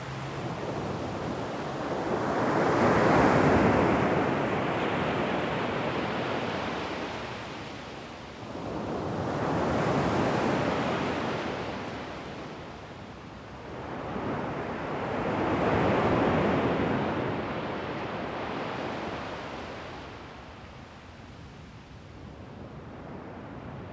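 Calm surf on a sandy beach: three gentle waves break and wash up the shore about six seconds apart, each swelling and then fading, followed by a quieter lull near the end.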